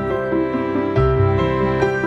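Background music: a slow, gentle melody of held notes over a recurring low bass note.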